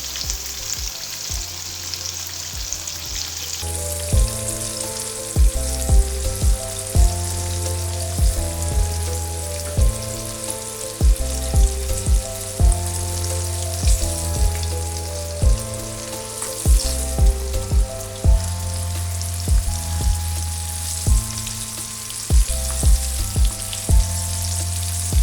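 Flour-coated chicken strips shallow-frying in hot sunflower oil, a steady sizzle. Background music with a bass line and a steady beat comes in about four seconds in and plays over it.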